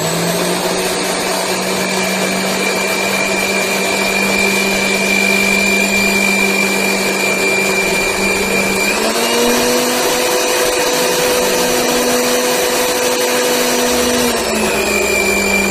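Electric mixer grinder with a stainless-steel jar running at speed, blending curd, sugar and ice cubes into lassi, a steady motor whine. Its pitch steps up about nine seconds in and drops back near the end.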